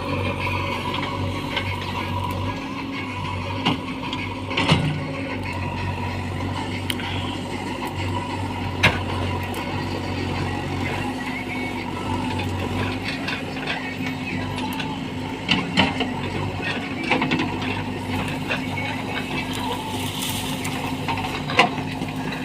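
JCB 3DX backhoe loader's diesel engine running steadily under work, with a few sharp knocks and clanks scattered through.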